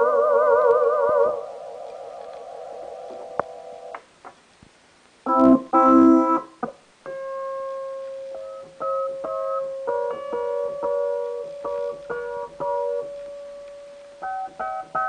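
Yamaha DX7s FM synthesizer being played: a chord with wavering vibrato rings on and fades away over the first few seconds, then a loud chord is struck, followed by a long held note with short chords struck over it one after another.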